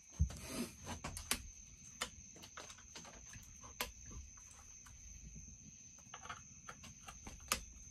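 Scattered light clicks and knocks of chainsaw parts and tools being handled during disassembly, over a steady faint high-pitched tone.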